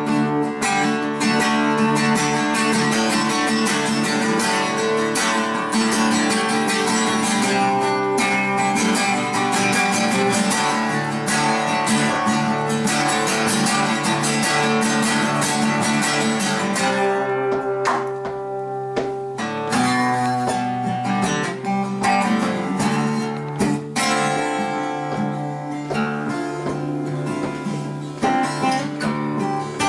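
Acoustic guitars strummed together in an instrumental passage, with full chords and a steady rhythm of strokes. The playing thins out briefly a little past halfway, then fills back in.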